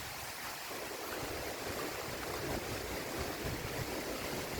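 Strong sea wind blowing with surf washing on the beach: a steady rushing noise that grows a little louder about a second in.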